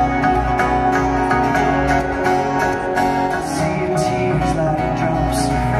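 Live band playing a song's opening, with guitar over bass and keys. Two bright crashes come in the second half.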